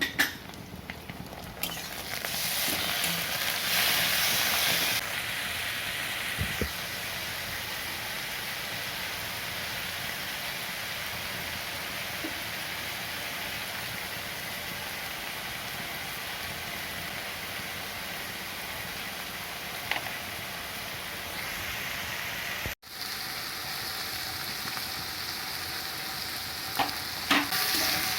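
Food frying in hot oil in a karahi, sizzling steadily while it is stirred, louder for a few seconds early on, with a momentary break about 23 seconds in and a few knocks of the utensil near the end.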